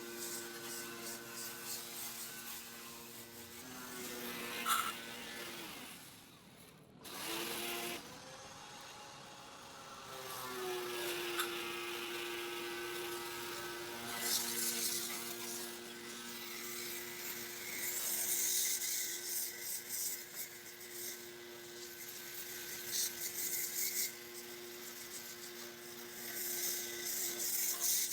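Small electric motor running with a steady hum that shifts pitch a few times, rising in a short glide about ten seconds in, under a hiss of spraying water, typical of an electric pressure washer pump used to wash an air conditioner.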